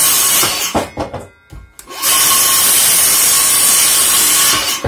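Cordless Greenworks circular saw running and cutting through a wooden board, with a steady motor whine over the noise of the blade in the wood. The cut comes in two runs: one that stops about half a second in, and after a break of about a second and a half with a few knocks, a second that runs until it stops near the end.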